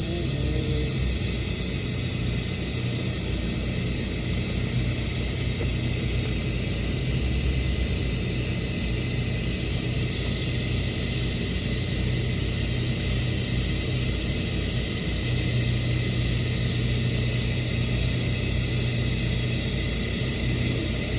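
Welding arc on carbon steel held steadily through a long horizontal pass: an even hiss with a steady low hum underneath.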